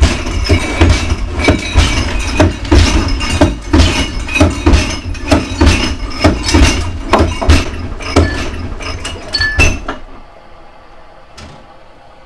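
A rapid run of loud knocks, clatters and clinks, about two or three a second, over a low rumble, like objects being handled and knocked close to the microphone; it stops abruptly about ten seconds in.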